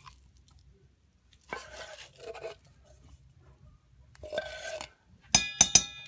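A metal fork scraping thick wet dog food out of a can into a stainless-steel bowl, with short scrapes about a second and a half in and again around four seconds. Near the end come three sharp metallic clinks with a ringing tail as the fork strikes the metal.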